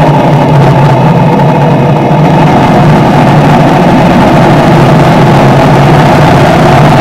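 Motorcycle engine running steadily at cruising speed, with wind and road noise, picked up by a dash cam mounted on the bike; loud and unchanging.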